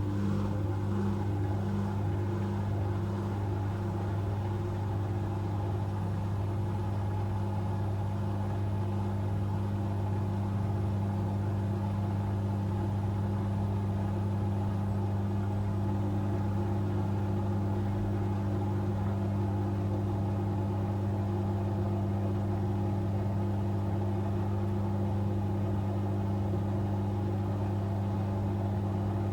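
Asko Quattro W6098X washing machine in its high-speed final spin: a steady hum from the motor and drum that holds constant.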